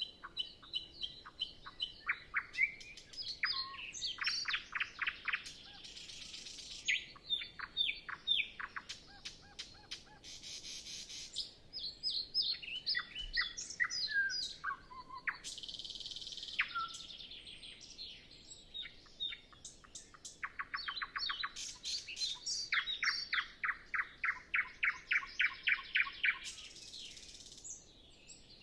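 Nightingale singing in the dark before sunrise: varied phrases of fast repeated notes, rattles and whistled glides, separated by short pauses, with no other birds singing.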